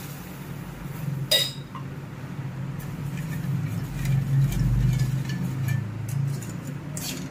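Steel spatula scraping and clinking against a hammered steel pan while sugar and water are stirred into a syrup. There is one sharp metal clink a little over a second in, then a run of light ticks and scrapes, over a steady low hum.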